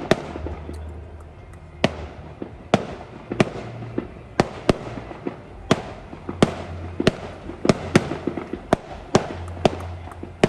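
Fireworks going off: a string of sharp bangs at irregular intervals, about one or two a second, with crackling and hiss between them.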